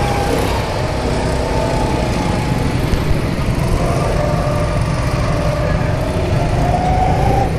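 Small go-kart engine running close by, its pitch rising and falling as the throttle is worked, over a steady low rumble.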